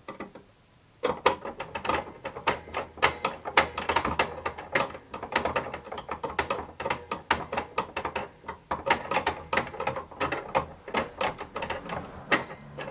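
Hand screwdriver working machine screws into a plastic and aluminium assembly, with rapid, irregular clicking and ticking that starts about a second in and keeps on.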